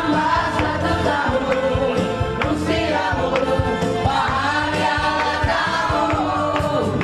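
Music: a group of voices singing together over instrumental accompaniment.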